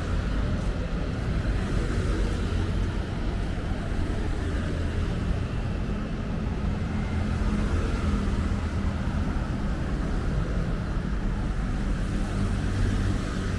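Steady low rumble of busy city road traffic, with a constant engine hum under it.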